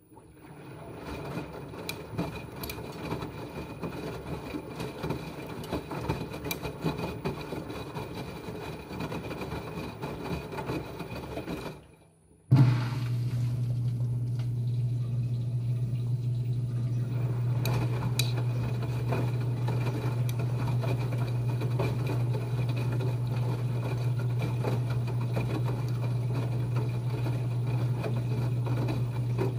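Uneven, fluttering noise that cuts out briefly about twelve seconds in. A steady low hum then starts abruptly with a jump and holds evenly.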